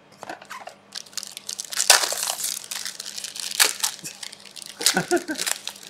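Foil trading-card pack wrappers being torn open and crinkled: a crackly rustling with two louder crackles partway through.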